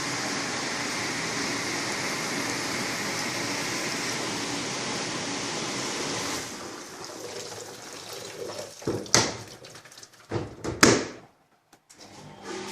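Meiko EcoStar 530F front-loading commercial dishwasher running, water spraying steadily inside it until the wash stops about six seconds in. Two loud sharp knocks follow, about two seconds apart.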